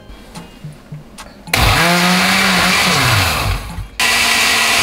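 Countertop blender blending a liquid jalapeño, cilantro and sour cream sauce. It switches on about one and a half seconds in, runs loudly, stops for a moment near four seconds and starts again.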